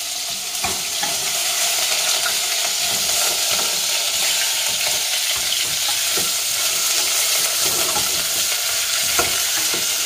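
Pieces of beef searing in hot oil in a stainless steel pot, a steady sizzle as they are browned (caramelized) for the stew. A wooden spoon stirs and scrapes them, with a few light knocks against the pot, the loudest near the end.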